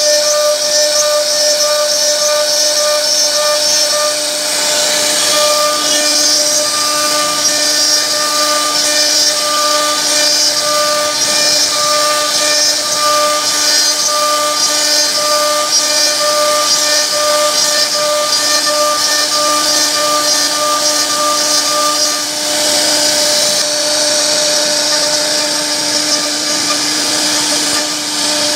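CNC router spindle whining steadily while its carving bit cuts relief patterns into a wooden door panel, with the noise of the bit cutting through the wood.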